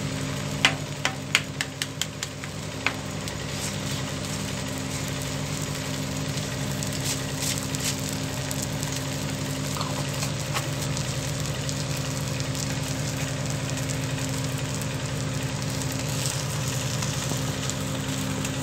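Ghee sizzling and frying under an uttapam on a hot tawa, steady throughout, over a low steady hum. Several sharp ticks come in the first three seconds.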